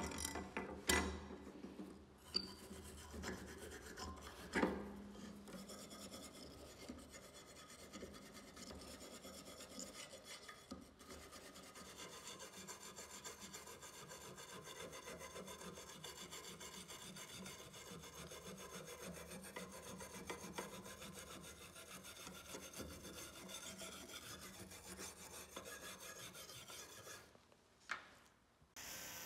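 A hand wire brush scrubbing rust off a steel knife blade, a steady scraping that stops abruptly near the end. A few knocks come first, in the opening seconds.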